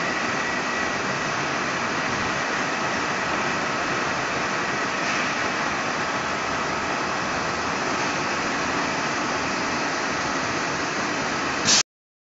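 Automatic arc-welding torch welding the seam of a transformer corrugated fin, a steady hiss with a faint high whine. Near the end a brief louder burst, then the sound cuts off abruptly.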